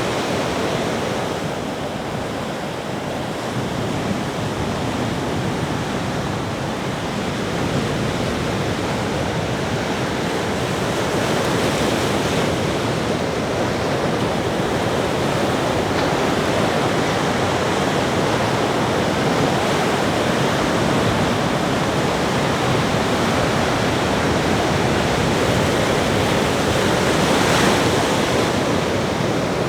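Ocean surf on a beach: a continuous rush of breaking waves that swells and eases, with one louder wave breaking near the end.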